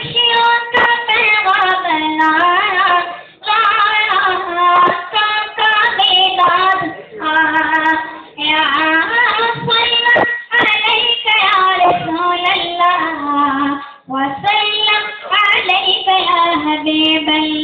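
A boy's solo voice reciting a naat in Urdu, singing with no instruments, in long melodic phrases with short pauses for breath between them.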